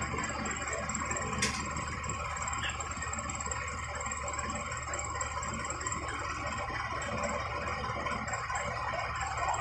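Steady machine hum with a faint high whine, and a single sharp click about a second and a half in, during screwdriver work on a plastic refrigerator fan-motor housing.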